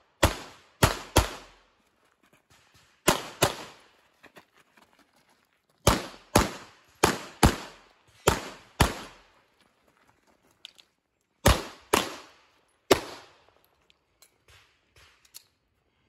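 Glock 48 9mm pistol firing rapid strings of shots, mostly in quick pairs: two, then two, then six, then three, with short pauses between the strings.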